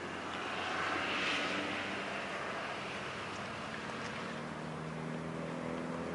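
Light propeller aircraft engine running. The sound swells to its loudest a little over a second in, then eases to a steady drone.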